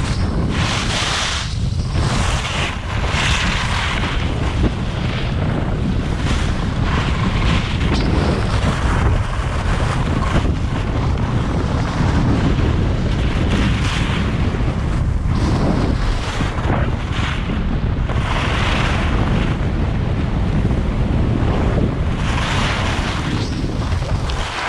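Wind buffeting the camera's microphone at skiing speed, with the hiss of skis sliding and carving on packed snow swelling and fading from turn to turn.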